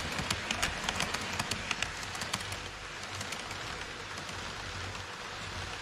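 HO-scale model of an E5 series shinkansen running past on KATO Unitrack, its wheels clicking over the track joints several times a second. The clicking stops about two and a half seconds in as the last car passes, leaving a steady running noise with a low hum.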